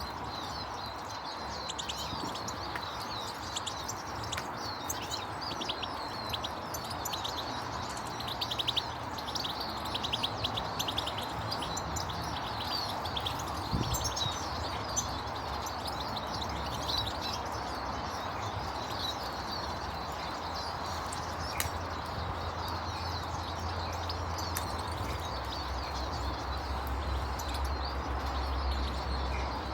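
Many small birds chirping and twittering at once, a dense run of quick high chirps over a steady background hiss. A low hum builds up in the last third.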